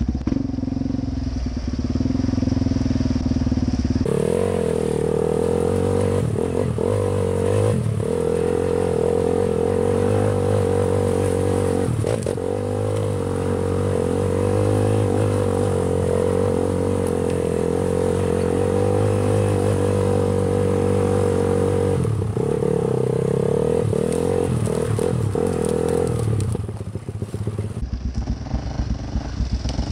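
Quad (ATV) engine running under throttle while riding a trail. About four seconds in it steps up to a higher, steady pitch and holds there, then eases off near the end.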